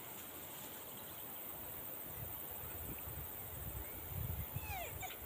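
Faint outdoor ambience of insects chirring in a high, rapid, steady pulse. Low rumbles build around four seconds in, and a short faint falling call comes near the end.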